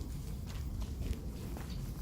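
Footsteps of a person walking, about two steps a second, over a steady low rumble.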